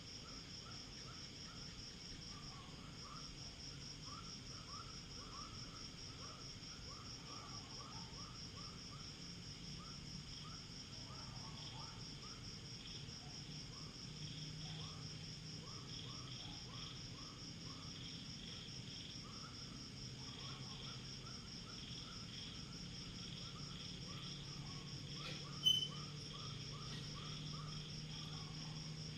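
Night chorus of crickets and other insects: a steady, fast pulsing trill with rows of shorter repeated chirps layered over it. A single brief sharp click sounds near the end.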